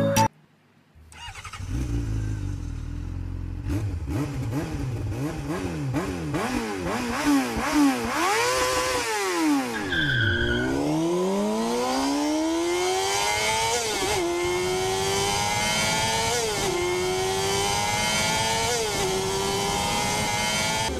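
An engine revving: several blips up and down, then accelerating through the gears, the pitch climbing and dropping back at each of three upshifts. A short beep sounds about halfway through.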